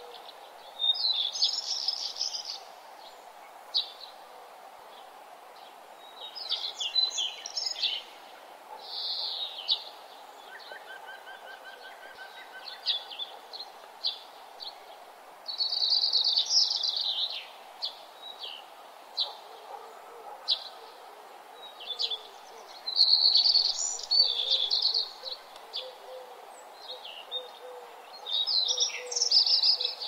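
Songbirds singing: short high bursts of chirps and trills come every one to three seconds over a steady low background rush.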